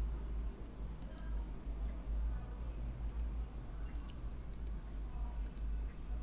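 Computer mouse clicking about five times, each click a quick double tick of press and release, over a low steady hum.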